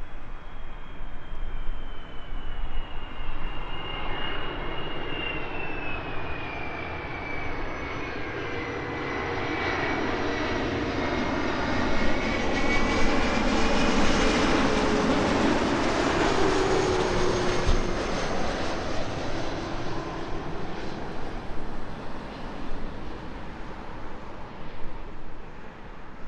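Jet airliner on landing approach passing close by. The engine noise builds to a peak about halfway through and then fades. A high whine and a lower tone both slide down in pitch as it goes past.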